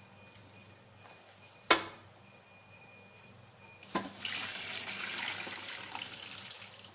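A single sharp clank of steel cookware about two seconds in, then rice and starchy rinse water pouring from a pressure cooker pot into a perforated steel colander, splashing and draining for about three seconds as the rice is drained of its starch.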